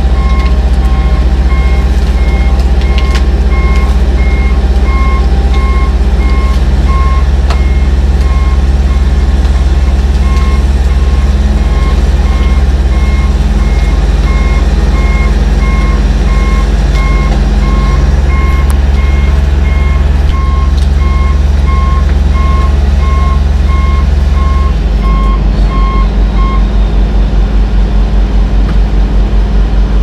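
John Deere 850J bulldozer's diesel engine running loud while its backup alarm beeps about twice a second as the dozer reverses. About 25 s in the engine note drops and turns throbbing, and the beeping stops shortly after.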